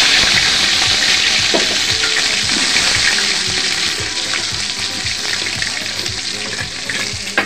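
Hot oil in a wok sizzling loudly as spoonfuls of paste and sliced onion are dropped in, a steady hiss that slowly dies down.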